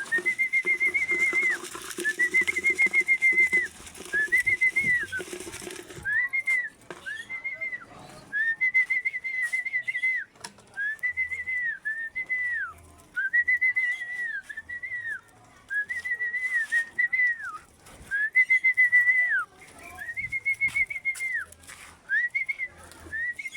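A person whistling a repeated trilled call, about a dozen notes each a second or so long, held level and dropping at the end: a pigeon fancier calling a homing racing pigeon down into the loft.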